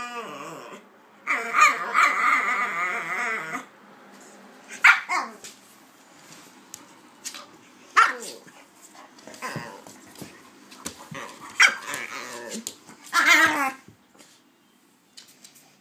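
Dogs at play, a pit bull and a King Charles spaniel: a drawn-out whining cry about a second in, then single sharp barks every few seconds and a short yelping cry near the end.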